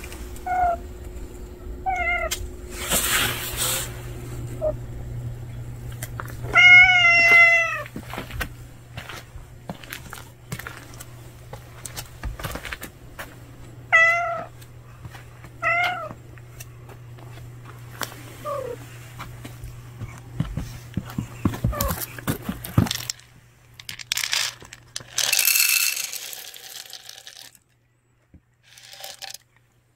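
Calico cat meowing repeatedly, about six calls, with a long loud meow about seven seconds in and shorter ones around it. A short noisy burst comes near the end.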